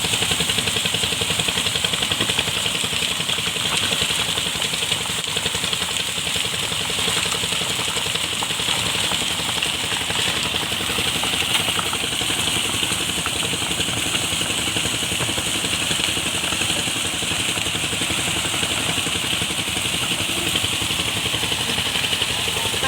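An engine running steadily at a constant speed, with an even hum and no change in pitch.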